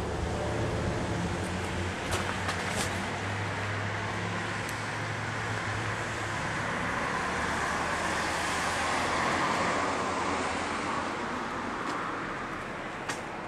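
Car traffic on a town street: a low engine hum in the first half, then tyre and engine noise swelling as a car passes about nine seconds in and fading toward the end.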